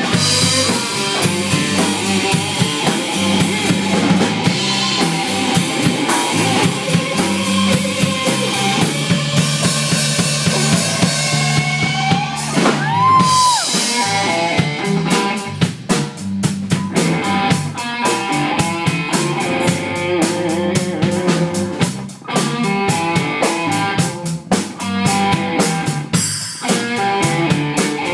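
Live instrumental rock band: an electric guitar playing lead over a drum kit. About halfway through, one guitar note slides up and is held.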